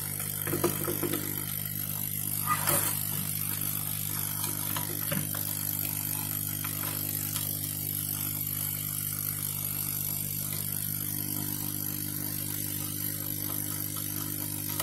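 Steady hum of a blower motor running, with a few light clicks of a small screwdriver near the start as the circuit-board screws of a hard drive are tightened.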